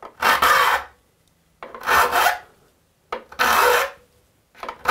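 Steel saw file rasping across the steel teeth of a rip saw, four separate push strokes about a second and a half apart with near silence between. The teeth are being sharpened at one pass per tooth, with the file held square to the saw plate.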